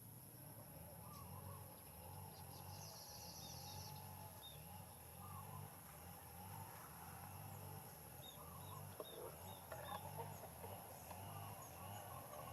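Faint outdoor ambience: many short, high chirps from small animals come and go over a steady high-pitched hum.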